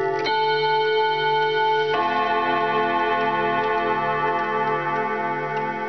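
The chime rods of an antique oDo ten-rod carillon wall clock struck by its hammers: two chords of several notes about a second and a half apart, each ringing on long. The clock's ticking runs faintly underneath.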